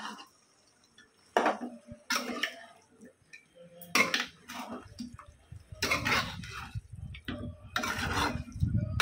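Metal spoon scraping and clinking against a metal pan as raw chicken pieces and sliced onions are stirred, in irregular strokes. A low rumble joins about halfway through.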